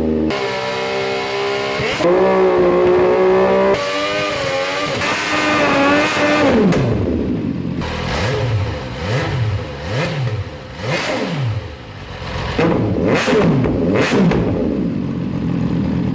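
MV Agusta F3 800's three-cylinder engine revving through a slip-on exhaust can. It is held at steady revs with sudden jumps in pitch and tone where recordings are cut together, then given several quick throttle blips that rise and fall, then held at steady revs again.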